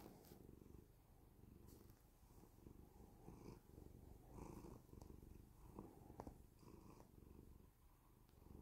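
Tabby cat purring softly while being stroked on the head, its low purr swelling and easing with each breath.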